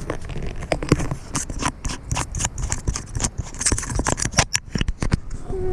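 Handling noise: fingers rubbing, tapping and gripping the camera right at its microphone, a quick irregular run of clicks and scrapes.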